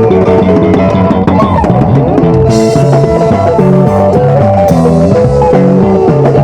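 Band music: several guitar lines playing quick, interlocking melodic runs over a bass line and a drum kit, with a bright wash in the highs about two and a half seconds in and again near four and a half seconds.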